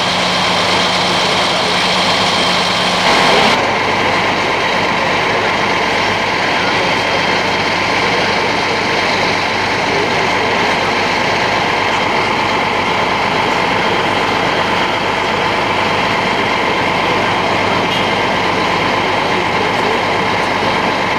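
A heavy engine running steadily, with a brief knock about three seconds in.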